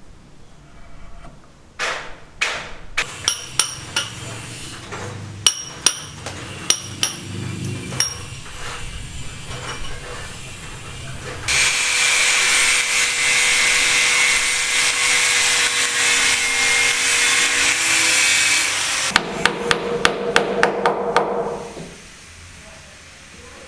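Construction work: scattered hammer blows, then a power tool running steadily for about seven seconds, followed by a quick run of hammer strikes.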